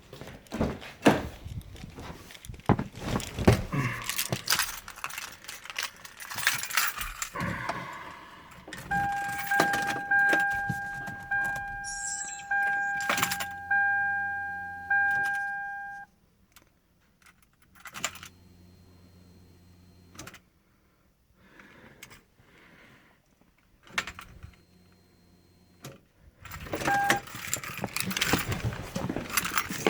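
Car keys jangling and clicking, then the 1997 Lexus ES300's warning chime dinging about six times, roughly a second apart, each ding fading. After a quiet stretch with a faint hum come one short ding and more key jangling; no engine cranking or running is heard, in keeping with a car that won't start.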